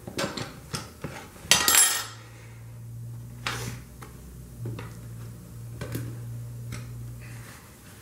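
Steel tire irons clinking and scraping against a motorcycle wheel rim while a tire bead is levered on, with a loud ringing metallic clatter about a second and a half in and a few lighter clicks later. A low steady hum runs underneath from about two seconds in.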